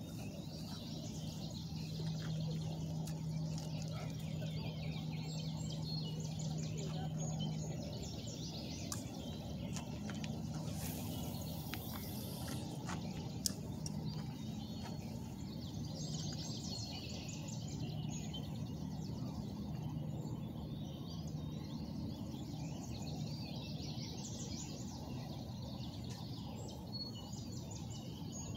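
Outdoor ambience of small birds chirping and calling again and again over a steady low hum and background noise, with one sharp click about halfway through.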